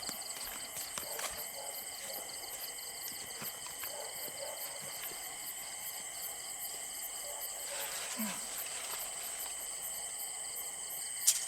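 A steady, high-pitched chorus of insects trilling on several fixed tones, with faint scattered ticks, and one sharp click near the end.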